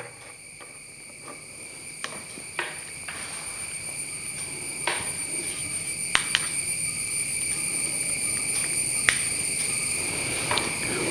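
Insects trilling steadily in a high, unbroken pitch, slowly growing louder, with a few scattered sharp clicks.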